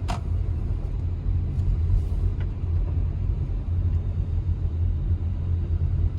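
Steady low rumble of a car driving, heard from inside the cabin, with a sharp click at the start.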